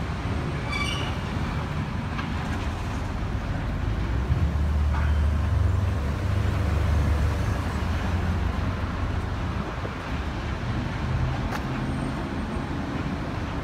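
Low rumble of road traffic, swelling for a few seconds near the middle.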